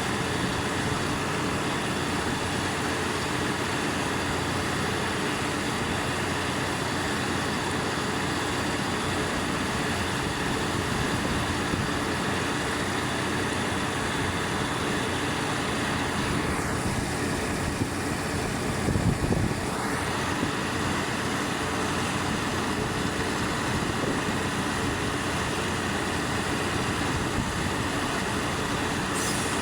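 Engines of a borehole drilling rig and its 18-bar air compressor running steadily, with a brief louder low rumble about two-thirds through.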